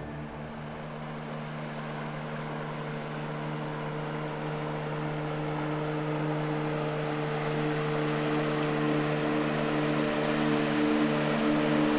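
Outboard motor of a bass boat running at speed on open water, a steady drone with a few fixed low tones over water and hull noise that grows gradually louder.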